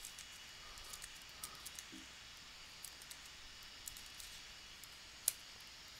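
Faint computer keyboard typing: scattered soft key clicks, with one sharper click about five seconds in.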